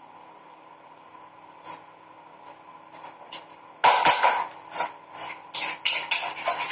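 Vegetables cooking in a covered pan on a low gas flame, sputtering: a few faint spatters at first, then from about four seconds in a run of loud spattering bursts, several a second.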